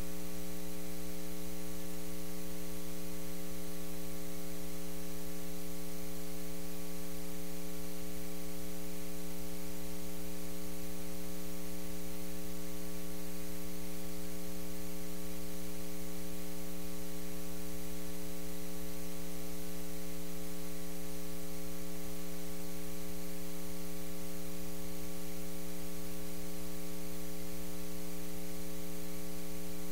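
Steady electrical mains hum with a buzzy edge and a faint hiss, unchanging throughout, with no speech or room sound audible over it.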